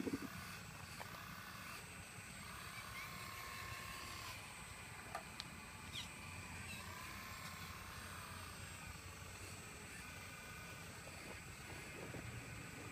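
Excavator running with a steady low rumble, and a higher whine coming in twice for a second or two as it works, with a couple of light clicks between.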